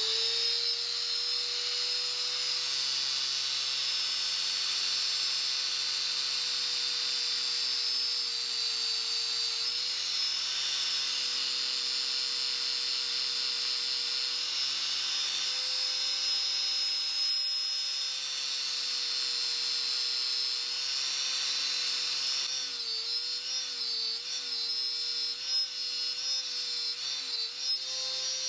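Corded angle grinder fitted with a wire cup brush, spinning up and then running with a steady high whine. In the last few seconds its pitch wavers up and down as the brush is pressed against a corroded metal buckle to scour off the oxides.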